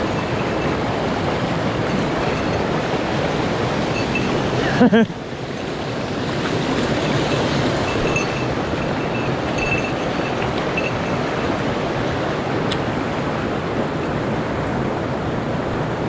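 Steady rush of a mountain stream's flowing water. About five seconds in there is a short, loud sound, and the water is briefly quieter after it.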